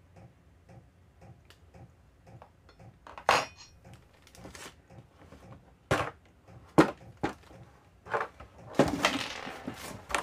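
Small metal router accessories, the guide bar and its wing nuts, being handled: a few sharp knocks and clinks spread through, then a rustling stretch near the end.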